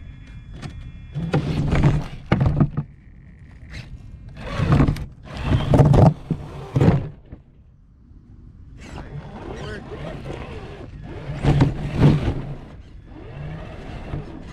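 Radio-controlled car driving over rock in several short bursts, its electric motor whining, with scraping and knocks from the wheels and chassis.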